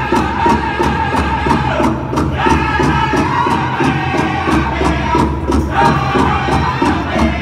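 Powwow drum group singing a fast song, the singers' high voices over a big hand drum struck in a fast steady beat, about four beats a second.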